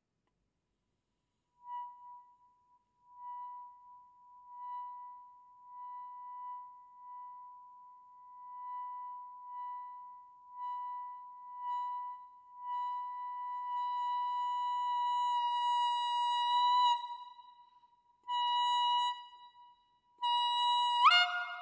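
Clarinet mouthpiece and barrel played on their own, the hands cupped around the barrel: a single high held tone that starts about two seconds in as soft pulsing swells and grows steadily louder and fuller. After it breaks off come a few short held notes, and near the end the tone suddenly jumps into a rough, split two-note sound.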